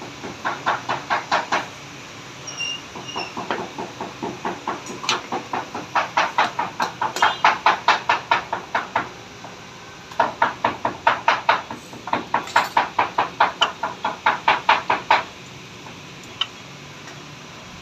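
Rapid rhythmic clacking, about four to five strokes a second, in bursts of a few seconds with short pauses between them, over a steady background hum.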